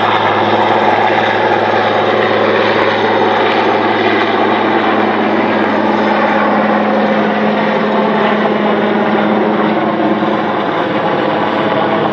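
Large military transport helicopter flying a low pass: loud, steady rotor and turbine noise over a low hum, its tones slowly falling in pitch as it goes by.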